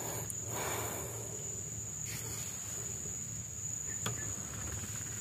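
Insects in the swamp vegetation droning with one steady, high-pitched whine, with a single light click about four seconds in.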